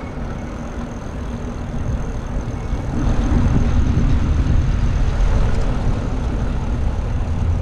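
Wind buffeting the microphone of a camera on a moving bicycle, with tyre noise on pavement, a steady low rumbling rush. It gets louder about three seconds in.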